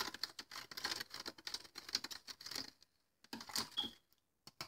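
A spoon stirring sugar into coffee in a plastic cup, making a rapid, light ticking against the cup's sides. The ticking stops about three seconds in, and a few more taps follow.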